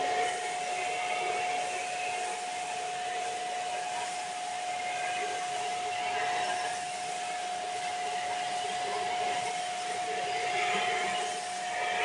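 Shark NV601UK Lift-Away upright vacuum cleaner running with a steady whine while it sucks up polystyrene beanbag beads from the carpet.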